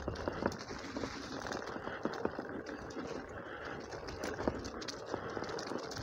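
Merida Silex 400 gravel bike rolling along a leaf-strewn forest dirt track: steady tyre noise broken by many small, irregular clicks and rattles as the bike jolts over the bumpy ground.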